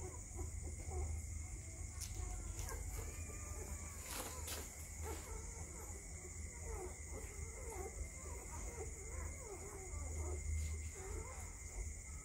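Newborn Belgian Malinois puppies squeaking and whimpering while nursing, many short high squeaks throughout, over a steady low hum, with a few clicks around two and four seconds in.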